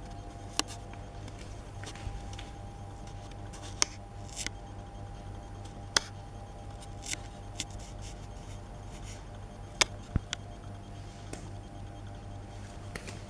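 Scattered sharp clicks and taps of hard accessory parts being handled, about half a dozen over several seconds, over a steady low hum.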